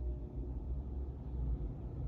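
Low, steady rumble of a car heard from inside its cabin: engine and road noise in slow traffic.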